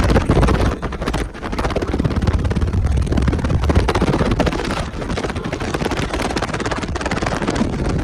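Very loud deep bass from a car audio system of twelve 15-inch subwoofers in a sixth-order bandpass box, with a blast of air from the box buffeting the microphone as heavy wind noise. The bass dips briefly about a second in.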